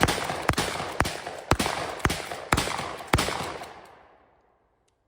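A rapid, evenly spaced string of seven sharp bangs, about two a second, each with an echoing tail. The last comes a little after three seconds in, and its echo dies away.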